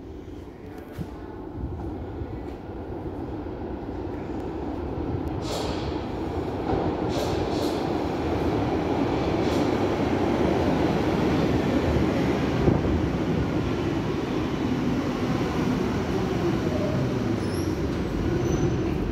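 Berlin U-Bahn train pulling into an underground station: its rumble grows steadily louder as it approaches, with a few clicks of the wheels over the track, then it brakes to a stop with faint high brake squeaks near the end.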